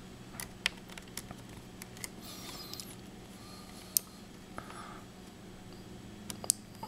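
Screwdriver working the small corner screws of a laptop screen frame: a few sharp, scattered clicks and ticks with a brief scraping stretch, over a steady low hum.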